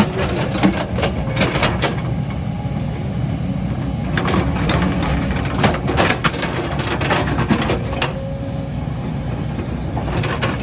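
Excavator's diesel engine running steadily, with scattered sharp knocks from the machine at work.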